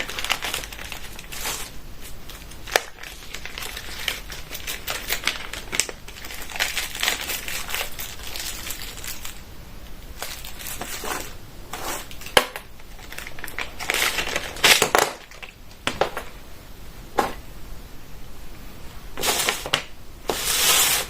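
Plastic packaging crinkling and rustling as multimeter accessories are handled and unwrapped, with scattered clicks and knocks, loudest in bursts about two-thirds of the way through and near the end.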